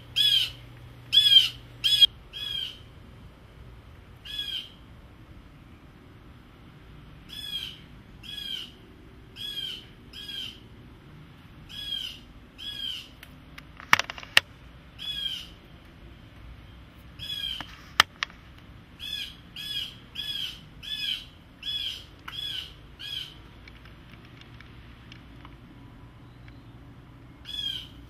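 Blue jay giving repeated short, harsh calls, about one a second in bouts with pauses: scolding a cat. Two sharp clicks about halfway through.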